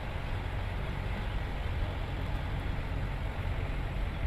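Steady low rumble and hiss of a running vehicle, engine and road noise without change.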